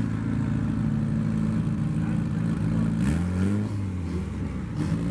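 Car engine idling loudly, with short revs that raise its pitch about three seconds in and again near the end.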